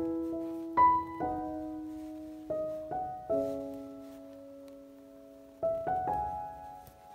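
Background piano music: slow, sparse notes and chords, each struck and left to ring out and fade.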